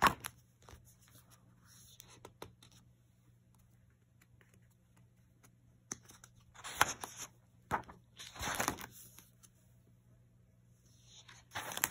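Paper pages of a spiral-bound sketchbook being handled and turned: a sharp click at the start, then after several quiet seconds a run of papery rustles and swishes, and one more just before the end.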